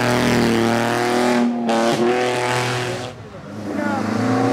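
Alfa Romeo GTV historic rally car's engine pulling hard under acceleration, with brief lifts for gear changes about a second and a half and two seconds in. About three seconds in it fades, and another rally car's engine comes in, rising, near the end.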